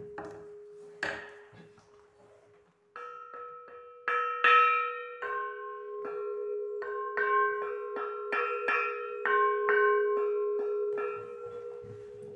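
A metal bell rung again and again, about three strokes a second, its tone ringing on between strokes and fading near the end. It opens with the last ring of an earlier stroke dying away and a single knock about a second in.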